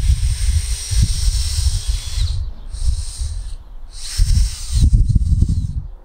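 Garden hose spray nozzle hissing in three bursts of spray aimed at the ground, the first and last lasting about two seconds each, with wind rumbling on the microphone.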